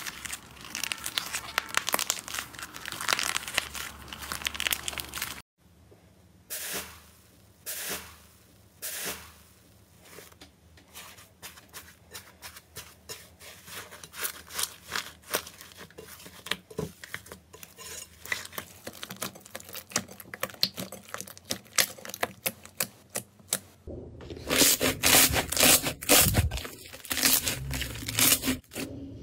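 Hands squeezing, pulling and pressing slime: dense crackling and tearing, then a long stretch of sparser sticky pops and clicks, then louder, denser crackling near the end.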